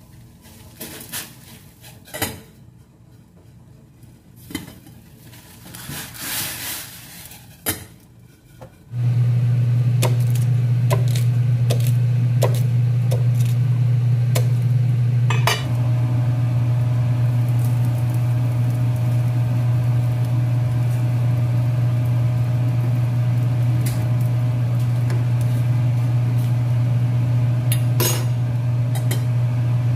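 A kitchen appliance's electric motor switches on abruptly about nine seconds in and hums loudly and steadily. Over it come scattered sharp knocks of a cleaver on a cutting board as corn cobs are chopped, and clinks of a pot.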